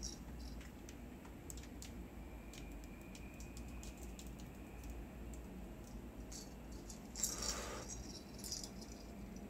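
Faint, scattered light clicks and ticks over a low steady hum, with a brief rustle about seven seconds in, as of the cat shifting on the cloth sheet.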